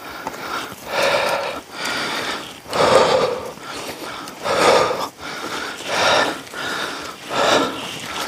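A person breathing hard close to the microphone, loud breaths in and out about every second and a half: out of breath from climbing a steep path.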